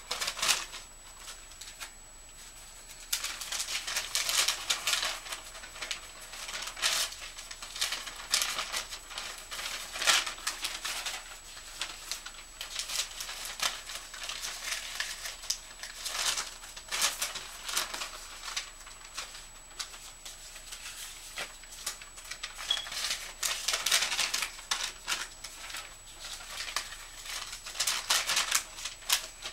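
Paper rustling and shuffling as handwritten letters, cards and envelopes are picked up, flipped through and sorted by hand: irregular crackly rustles and flicks, with a short lull about two seconds in.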